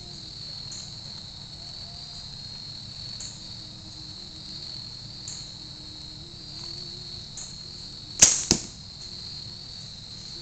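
Compound bow released about eight seconds in, a sharp snap, followed about a third of a second later by a second, weaker smack of the arrow striking the target. Crickets trill steadily throughout.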